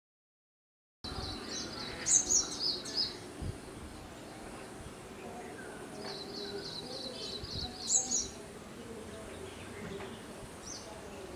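Silent for about the first second, then a bird calling in rapid runs of high, chirping notes, two main runs and a few shorter ones, over a steady outdoor background.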